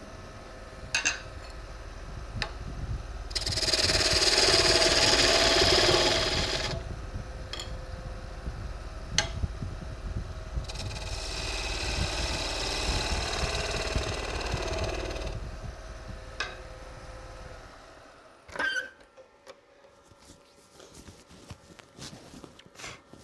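Wood lathe running with a steady low hum while a turning tool cuts into the spinning ash blank in two long passes, one about three seconds in and one about eleven seconds in, with a few light knocks between. The lathe stops about eighteen seconds in.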